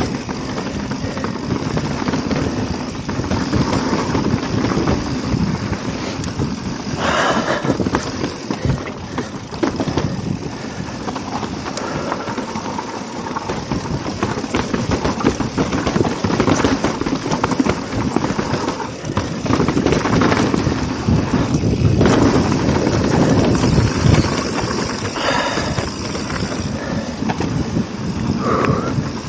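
Mountain bike rolling along a dirt trail, tyre noise mixed with wind buffeting the action camera's microphone.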